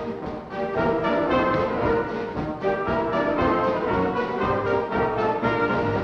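Orchestral dance music led by brass, playing as accompaniment to a revue stage dance number. It comes from an early 1930s sound-film recording with a dull, cut-off top end.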